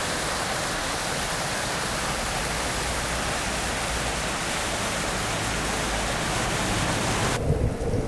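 Shallow stream rushing down a narrow stone-and-concrete channel: a steady, even rush of water that cuts off suddenly near the end.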